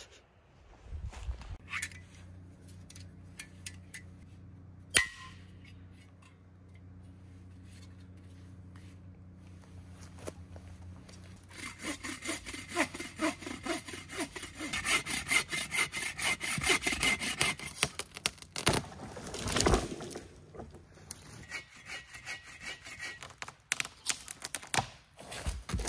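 Folding bow saw cutting through a tree trunk in quick, even back-and-forth strokes, starting about halfway in, with a shorter bout of lighter strokes near the end. Before the sawing there are scattered knocks and one sharp knock, and there is a loud thump shortly after the main run of strokes.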